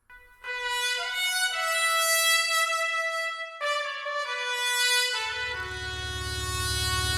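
Instrumental music: sustained brass-like melody notes over strings, changing pitch every second or so, with a low steady drone entering about five seconds in.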